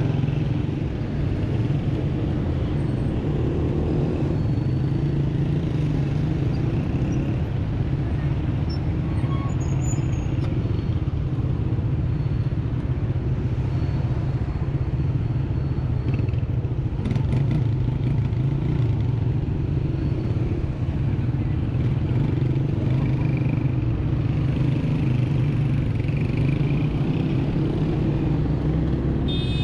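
Busy city rush-hour traffic heard from a small scooter stopped among motorcycles and cars: nearby small motorcycle engines and car engines running steadily, with the scooter moving off slowly near the end.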